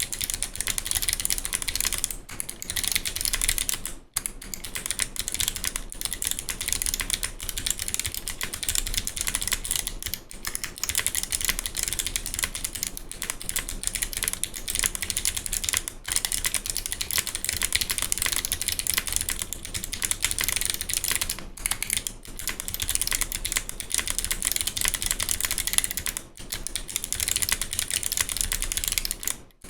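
Continuous fast typing on a NYM96 mechanical keyboard with Kailh Box Navy clicky switches and GMK keycaps: a dense stream of sharp, thick clicks, broken by brief pauses a few times.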